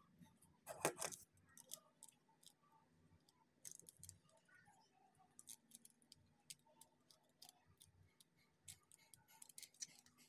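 Faint, irregular clicking of a small three-digit combination padlock's number wheels being turned by thumb, with the metal lock handled and rattled. A louder rattle comes about a second in.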